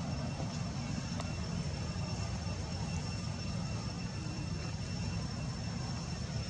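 Steady low rumble of outdoor background noise with a faint, steady high-pitched tone above it; no distinct events.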